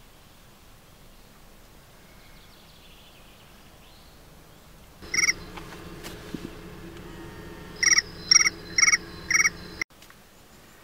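Short, loud animal calls: one about five seconds in, then four evenly spaced near the end at about two a second. A low steady hum comes in with the first call and cuts off suddenly just after the last.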